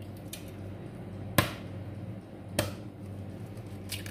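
Eggs being cracked against the rim of a bowl: two sharp knocks about a second apart with a couple of fainter taps, over a steady low hum.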